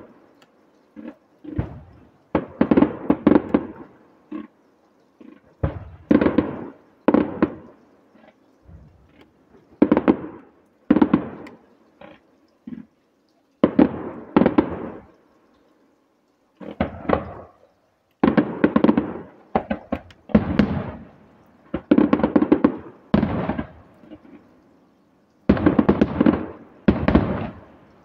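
Fireworks display: aerial shells bursting one after another, each a loud bang or a quick cluster of reports followed by a rumbling echo that trails off. There is a short lull a little past halfway, then the bursts resume.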